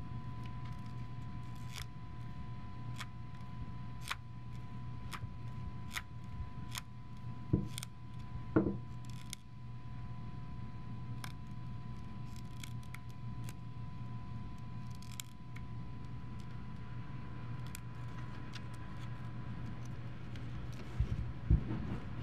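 Light plastic clicks and taps from a 3D-printed PLA prosthetic hand (Flexy-Hand 2) being handled and turned over. They come about once a second for the first half and more sparsely after, with two louder knocks around eight seconds in, over a steady low hum.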